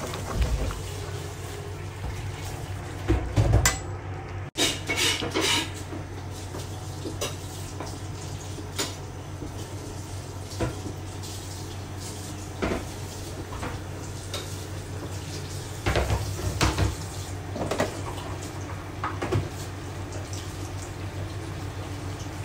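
Kitchenware clattering: scattered clinks and knocks of dishes, cutlery and a metal cooking pot being handled, a few coming in quick clusters, over a steady low hum.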